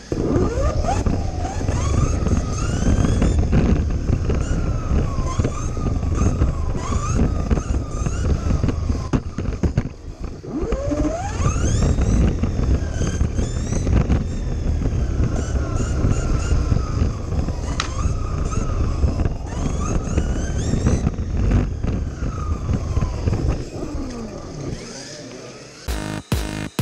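Kyosho Mini-Z RC car's small electric motor whining, rising and falling in pitch as the car speeds up and slows, over rumble and rattle picked up by a camera riding on the car.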